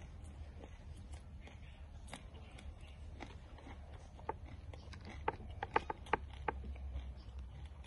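A man chewing a mouthful of spicy frog dish. A cluster of short, sharp clicks comes between about four and six and a half seconds in, over a steady low hum.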